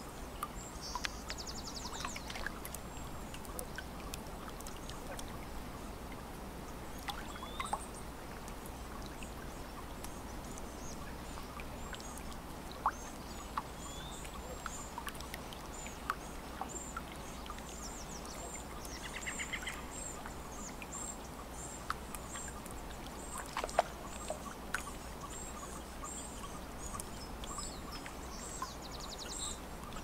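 Small waves lapping at a lake shore with many little splashes and clicks, and birds calling over it: short trills near the start, in the middle and near the end, and a run of high chirps through the second half.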